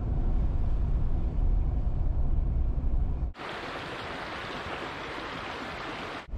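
Steady low rumble of a Jeep heard from inside the cabin while it drives. About three seconds in this cuts abruptly to a small creek running over rocks between snowbanks, a steady rushing hiss of water.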